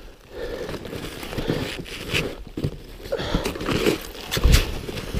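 Snowshoes crunching and scraping in deep snow, in irregular steps of a hiker climbing a steep slope.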